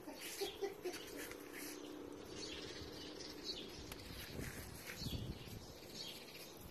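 Birds chirping faintly in short scattered calls over quiet open-air background.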